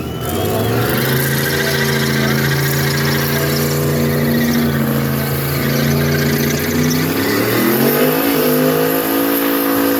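Car engine running loud at steady revs, then the revs climb about seven and a half seconds in and hold at a higher pitch.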